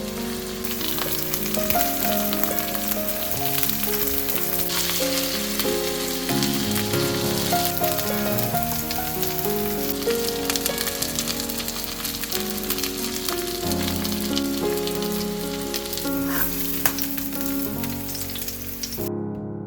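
Food sizzling as it fries in a hot pan, a steady crackling hiss that cuts off abruptly near the end, with background music over it.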